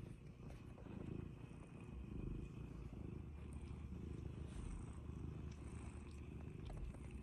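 Domestic cat purring close to the microphone, a steady low rumble.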